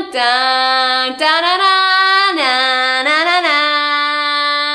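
A woman's voice singing a few long, held notes, stepping and sliding between pitches, with short breaks about a second in and again after two seconds.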